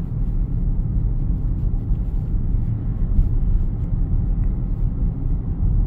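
Steady low road and tyre rumble inside the cabin of a Genesis GV80 SUV on the move.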